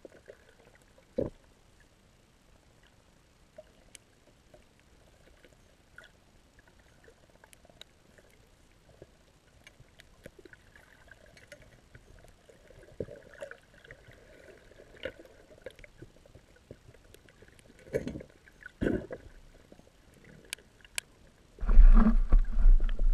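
Underwater ambience heard through a camera housing: faint scattered clicks and a few knocks, the clearest about a second in and two more near the end. Then a loud rumbling rush of handling noise as a gloved hand grabs the camera pole.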